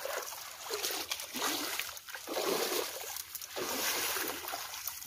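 Muddy shallow water splashing and sloshing in surges every second or so as a fine-mesh net is dragged through it by a person wading.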